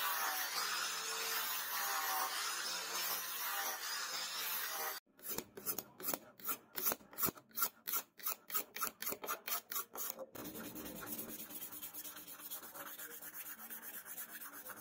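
An angle grinder with a sanding disc runs against a wooden knife handle, then stops abruptly about five seconds in. Hand sanding follows: rhythmic strokes of sandpaper on the wooden handle, about three or four a second, turning to quicker, softer rubbing about ten seconds in.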